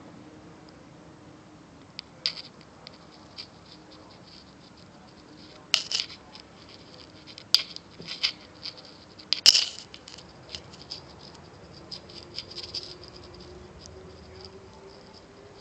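Irregular scratching, rustling and clicking close to the phone's microphone, busiest and loudest about six to ten seconds in. Under it is a faint steady hum from the distant Airbus A310's jet engines, which rises slightly in pitch in the last few seconds.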